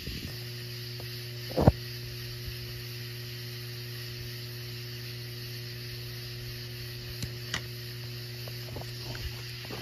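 A steady low hum over an even hiss, with one sharp click about one and a half seconds in and a few faint clicks near the end.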